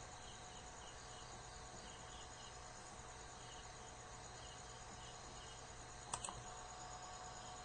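Faint insect chirping, heard as small groups of short high pulses, over a steady background hiss and hum. Two sharp clicks come close together about six seconds in.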